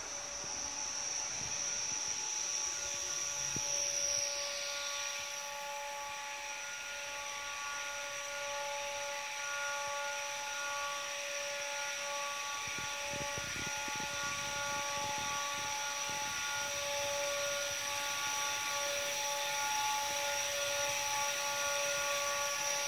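Polybahn funicular car arriving at its station, heard from on board: a steady whine of several tones over a hiss, with a high whistle that falls away about four seconds in.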